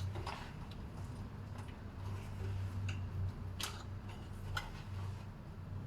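A handful of irregular light clicks and ticks from a screwdriver and wire being worked at the panel's power-supply terminals, over a steady low hum.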